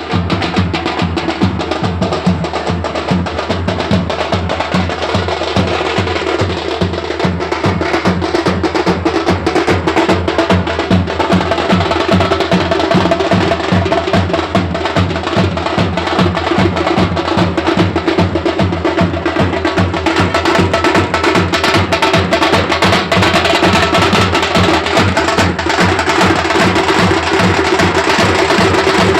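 Loud, drum-led music with a fast, steady beat.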